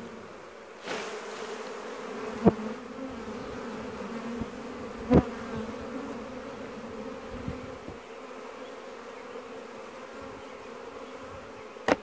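Swarm of honey bees from a queenless laying-worker colony buzzing in a steady, wavering hum as they are shaken off their frames and take to the air. Two sharp knocks come about two and a half and five seconds in.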